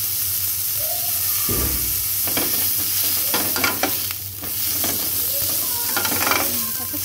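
Sausages sizzling in a ridged grill pan, with a spatula scraping across the pan several times as it pushes and rolls them.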